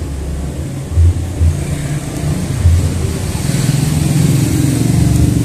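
Bass-heavy music from a distant outdoor party sound system: deep bass beats at an uneven pace over a low, steady drone.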